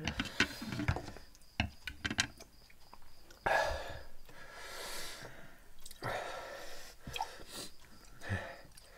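Close-up eating noises over spicy instant noodles: chewing and two loud, breathy slurps, with a few light clicks of chopsticks and a glass at the table. Near the end, milk is poured from a carton into a glass.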